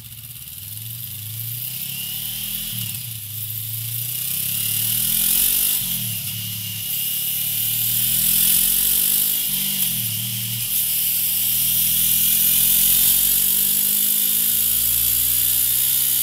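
Honda CB500F's parallel-twin engine breathing through a MIVV Suono slip-on exhaust, accelerating through the gears on a rolling-road dyno. The revs climb, drop at each of three upshifts about 3, 6 and 10 seconds in, then rise in one long final pull, with the rear tyre whirring on the dyno roller.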